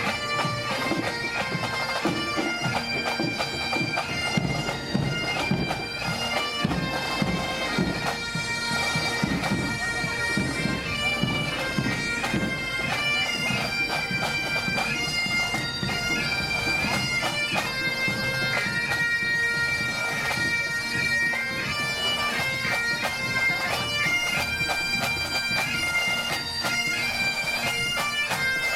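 A marching pipe band's Highland bagpipes playing a tune over their steady drones, with drumming beneath.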